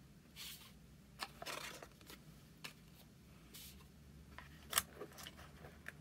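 Faint rustles and light clicks of a phone box's cardboard and paper packaging being handled, with a cluster of sharper taps near the end as the charger and cable tray is worked open.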